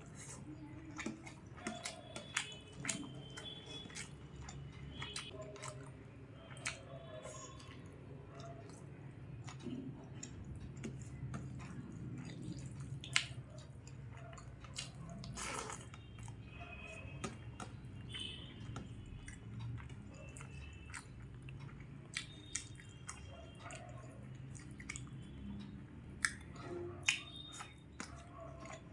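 Close-up chewing of a mouthful of rice and chicken curry, with irregular wet mouth smacks and clicks throughout.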